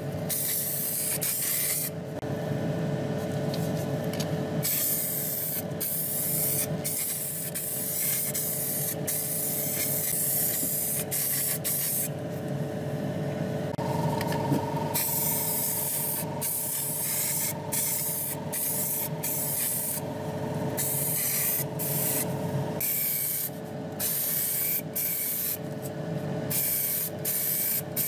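Paint spray hissing in repeated bursts with short pauses between them, over a steady hum.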